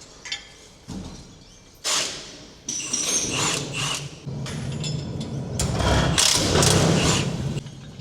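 A few metal clanks, then a power tool running for about five seconds, rising and falling, as the wheel tether bolts on a monster truck's wheel end are worked loose.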